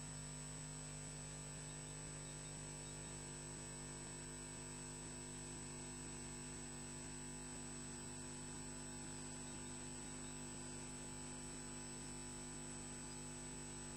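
Steady electrical hum and hiss from a nest camera's audio feed, several fixed low tones with a thin high whine above, unchanging throughout; no bird calls.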